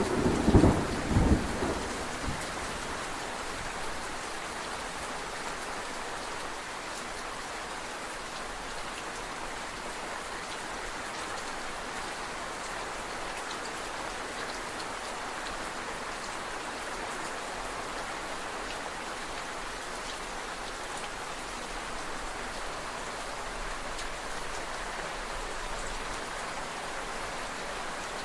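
Steady rain falling, an even hiss of drops, with a rumble of thunder dying away over the first couple of seconds.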